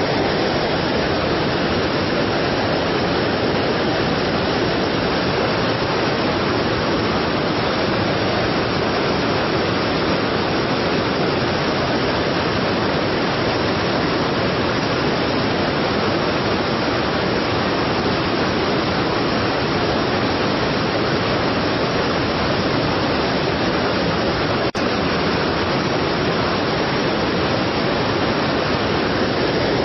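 Strong waterfall rushing steadily, a dense, even roar of falling water.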